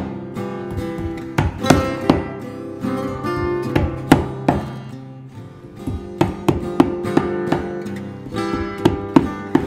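Acoustic guitar music, with sharp, irregular taps of a cobbler's hammer driving small tacks into a leather boot sole.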